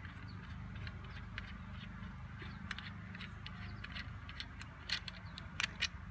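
Takedown recurve bow's limb bolt being unscrewed by hand, with small scattered ticks, then a few sharper clicks near the end as the limb comes free of the aluminium limb pocket. A steady low hum underneath.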